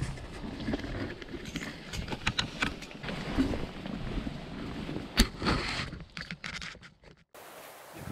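Canvas tipi tent being taken down: fabric rustling and shifting around the centre pole, with scattered clicks and knocks and one sharp knock about five seconds in.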